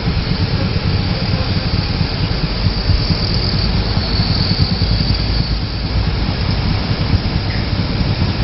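Motorcycles idling and moving off in street traffic: a steady low rumble with an even hiss over it.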